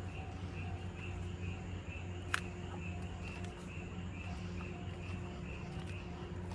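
Level crossing warning bell ringing at about two strikes a second over a steady low hum, with one sharp click about two seconds in.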